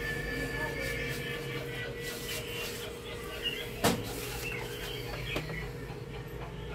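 Double-edged razor blade scraping along the glass edge of an LCD panel to lift its polarizer film, with a sharp click about four seconds in and a smaller one a little later, over a steady low hum.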